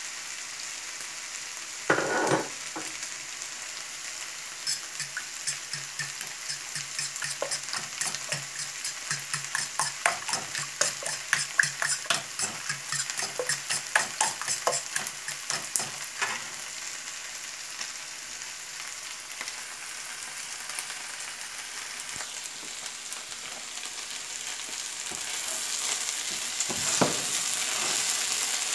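A pan of grated potato, sweet potato, bacon and onion sizzling on the stove. A knock about two seconds in, then eggs being beaten in a bowl with quick clicking strokes for about ten seconds; near the end a spatula stirs the pan and the sizzle grows louder.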